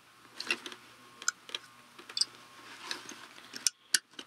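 Irregular light clicks and small scrapes of a box knife being handled and worked into a cardboard toy box to cut it open.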